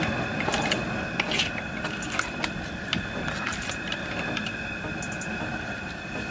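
Wooden spatula stirring a thick seafood stew with mussels in a large aluminium pot: irregular clacks of shells and spatula against each other and the pot, over a steady low rumble.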